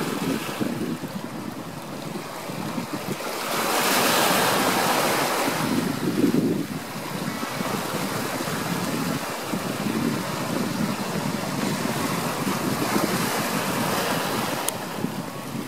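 Ocean waves washing in: a steady rushing with one louder surge about four seconds in.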